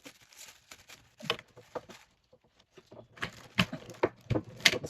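Plastic shoe rack parts being handled and pushed together, making a run of irregular clicks and knocks that come thicker and louder in the second half.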